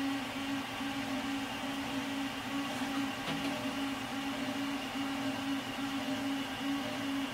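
Creality Ender 3 3D printer's stepper motors whining while printing, with their X and Y steppers mounted on vibration dampers. One steady low tone carries the sound, broken into short runs by brief gaps, with fainter higher tones above it.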